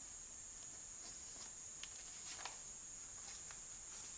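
Faint rustling and soft ticks of a paperback book being handled and opened, its pages shifting under the hand, over a steady faint hiss.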